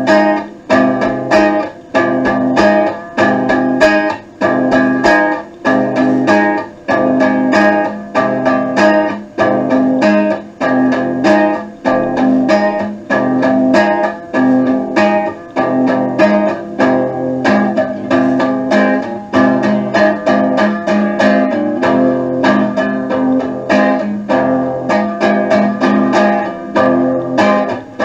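Guitar music: guitar chords strummed in a steady, regular rhythm.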